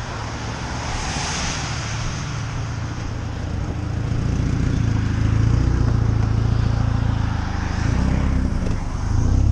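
A car running: a steady low engine rumble with road noise, getting louder about four seconds in.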